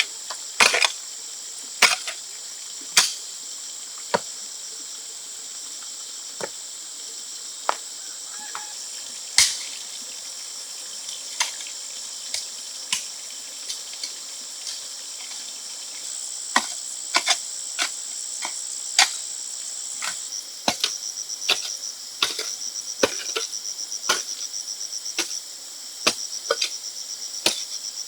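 Rainforest insects chirring steadily at a high pitch, with a second, pulsing insect call joining about two-thirds of the way through. Over this, sharp knocks sound at irregular intervals, a second or so apart, coming more often near the end; these are the loudest sounds.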